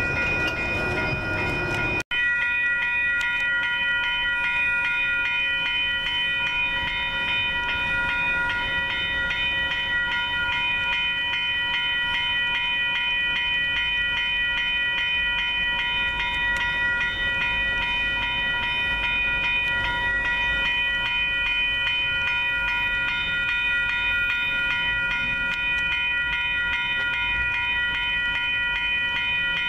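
Grade-crossing warning bells ringing continuously at an active railroad crossing, several bells overlapping in a fast, steady ring. For the first two seconds a train's rumble lies under them, cut off suddenly, and near the end a low rising sound of a train comes in.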